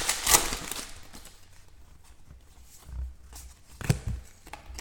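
Trading cards being handled on a table during a box break: a couple of sharp clicks at the start, then mostly quiet with soft knocks about three and four seconds in.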